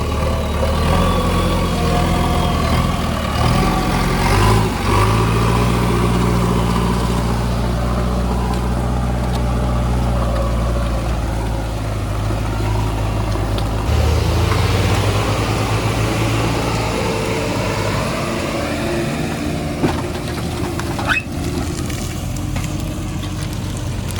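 Heavy diesel engine running, its note shifting a few times as the load or throttle changes, with two short sharp knocks near the end.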